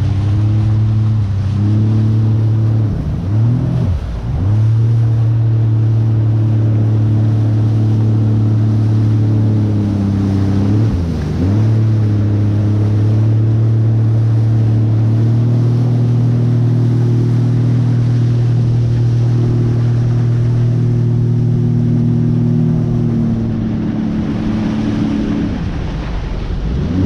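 Jet ski engine running steadily under way, with water and wind noise. The engine note drops briefly twice, a few seconds in and again about eleven seconds in, rises a little about halfway through, and eases off near the end.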